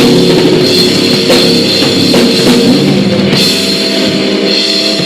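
Live rock band playing loudly: held electric-guitar chords ringing out, with a few scattered drum and cymbal hits.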